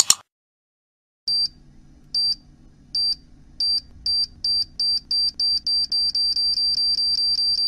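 Electronic countdown beeping of a time-bomb sound effect: short high beeps that start about a second in and come faster and faster, from under one a second to several a second, over a faint low hum. A short noisy click sounds right at the start.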